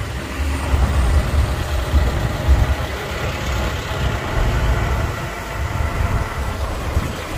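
Road traffic heard from a moving motorbike: a steady low engine rumble as it rides past a queue of container trucks and cars.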